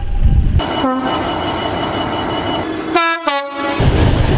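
Train horn blasts. A heavy low train rumble cuts off abruptly about half a second in, a short horn note sounds just after, and near the end two short horn blasts sound in quick succession.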